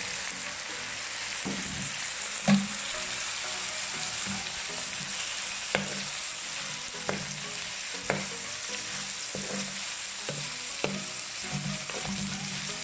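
Garlic, onion and tomatoes sizzling in hot oil in a pan, stirred with a spatula that knocks against the pan now and then; the loudest knock comes about two and a half seconds in.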